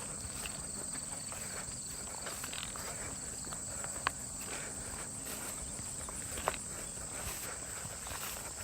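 Footsteps of a hiker walking through grass, over a steady high-pitched trill of insects. A few sharp clicks stand out, about four and six and a half seconds in.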